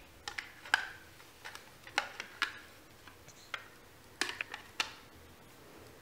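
Hard plastic shape blocks clicking and tapping against the plastic lid of a child's shape-sorter toy: about a dozen light, irregular knocks as the pieces are tried in the holes.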